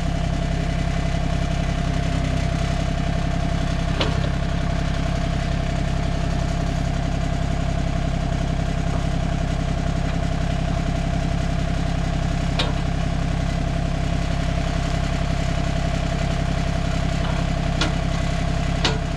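Tractor engine idling steadily, with a few short sharp clicks or knocks now and then.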